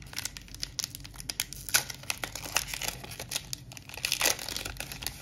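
Foil booster-pack wrapper crinkling and crackling as it is handled, in dense, irregular crackles.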